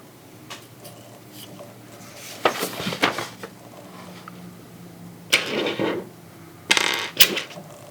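Hard plastic parts of a Transformers action figure being handled: a few light clicks, then three short bursts of plastic scraping and rattling about two and a half, five and a third, and nearly seven seconds in.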